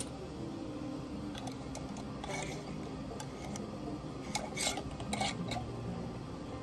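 Metal canning lid and screw band clinking and scraping against a glass half-pint jelly jar as the lid is set on and the band screwed down. There are scattered sharp clinks, with the busiest cluster about four to five and a half seconds in.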